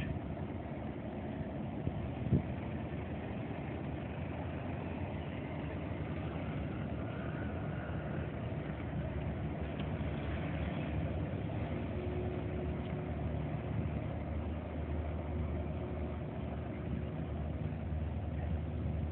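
Low, steady rumble of a high-speed passenger catamaran's engines as it manoeuvres in the harbour, slowly growing a little louder. A faint steady whine runs through the middle part, and a single brief knock comes about two seconds in.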